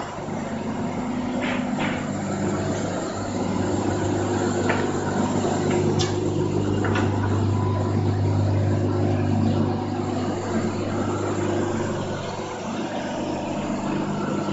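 Electric fibre-processing machine for PP cotton (polypropylene fibre fill) running, a steady motor hum with a strong low tone, with a few short sharp ticks in the first half.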